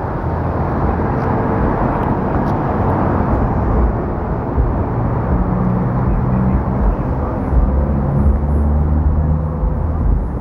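Street traffic noise: a steady wash of passing vehicles, with a low engine hum that comes in about halfway through.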